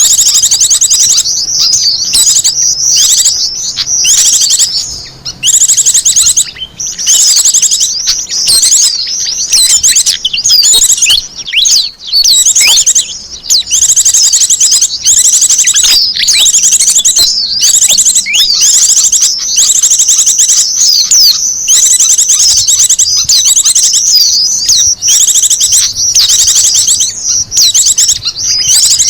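Small wild songbirds chirping and trilling in a dense, rapid, high-pitched stream almost without pause: a recorded bird lure call (suara pikat) meant to draw wild small birds in.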